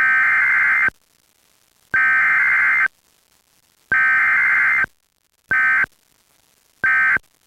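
Emergency Alert System SAME digital data tones: three bursts of about a second each, spaced about a second apart, then two short bursts near the end. This is the pattern of an EAS header followed by end-of-message codes.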